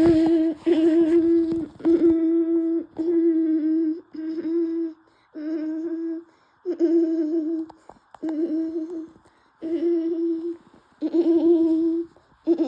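A voice-like hooting hum repeated about once a second: the same held note each time, slightly wavering, with short gaps between.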